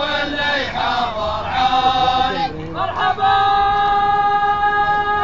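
Men chanting together in unison, then about three seconds in a car horn starts and holds one steady note over them.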